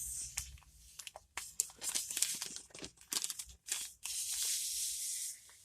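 Small plastic packet of glow sand crinkled and opened with a run of irregular sharp crackles, then the pink sand poured out in a steady hiss for about a second near the end.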